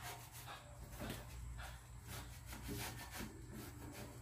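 Faint, irregular rubbing and scraping strokes, about two a second, from cleaning work.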